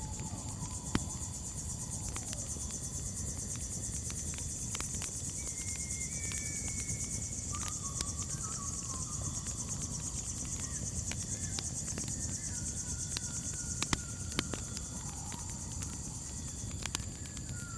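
Crickets chirping steadily in a high, fast-pulsing trill over a crackling campfire, with scattered sharp pops from the burning wood and a low rumble. A few faint, drawn-out whistled notes come and go in the background.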